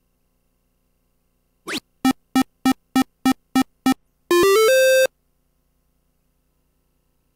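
Electronic dart machine sound effects as a turn's hits are scored. A short rising sweep is followed by eight evenly spaced beeps, about three a second, then a brief stepped electronic jingle.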